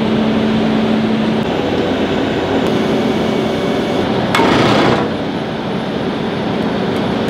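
Heavy tow truck running steadily as its underlift lowers the towed semi, with a short burst of hiss about four and a half seconds in.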